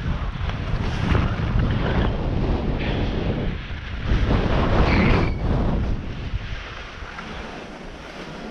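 Skis carving and scraping over packed, chopped-up snow, with surges of hiss through the turns, while wind buffets the camera's microphone with a steady low rumble. The wind rumble eases off about six seconds in.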